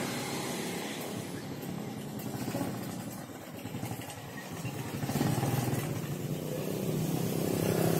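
An engine running steadily with a low hum, growing louder about five seconds in, typical of a motorcycle or other motor vehicle close by.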